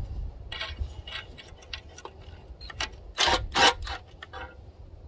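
Cordless power tool worked on the rocker area of a Caterpillar 3406B cylinder head: scattered ticking clicks of the tool and metal, with two short runs of the tool, the louder one a little past halfway.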